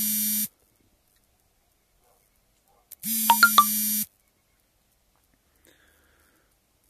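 Electronic buzzer tone with three quick higher beeps over it, sounding twice: once ending about half a second in and again about three seconds in, each about a second long and identical.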